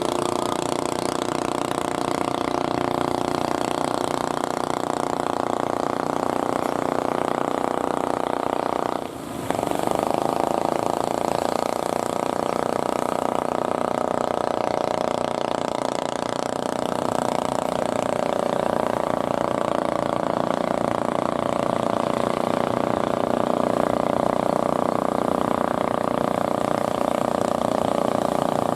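Fishing boat engine running steadily at an even pitch, briefly dropping out about nine seconds in.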